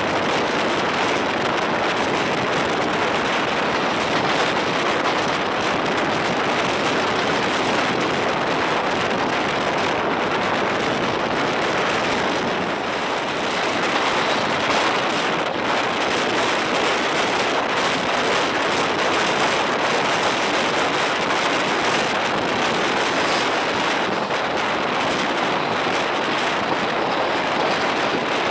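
Steady rush of wind on the microphone mixed with the running noise of wheels on rail, from a passenger coach travelling at high speed and heard at an open door. The level dips briefly a little under halfway.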